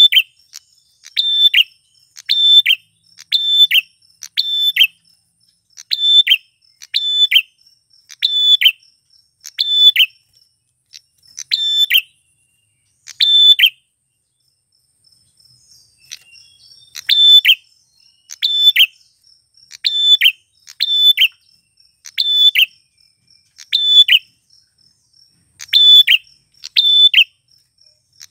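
Male prenjak klawu, a prinia, calling in loud, sharp, high-pitched notes, about one a second, with a pause of a couple of seconds near the middle. A faint, steady, high insect trill runs underneath.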